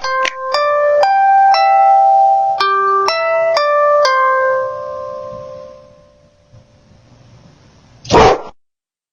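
A short melody of clear, ringing chime-like notes, about a dozen in quick succession, the last one ringing out and fading over a couple of seconds. A brief loud burst of noise comes near the end.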